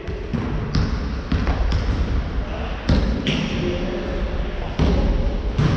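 Basketball bouncing on a wooden sports-hall floor: several sharp thuds at irregular intervals.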